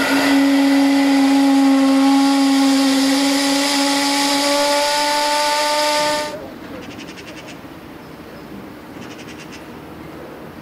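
Ship's steam whistle blowing one long, low blast with a rush of steam hiss, its pitch creeping slightly upward; it cuts off about six seconds in, leaving a much quieter background.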